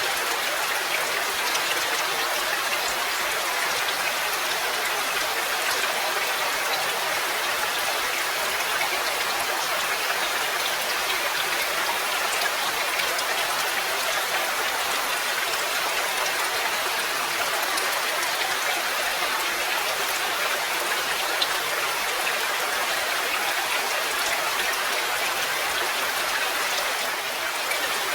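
Steady rain falling, an even hiss of rainfall with a fine patter of individual drops.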